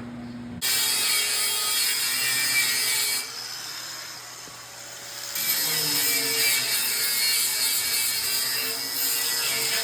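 Power tool working steel with a loud, harsh hissing. It starts abruptly about half a second in, eases off for about two seconds near the middle, then runs loud again.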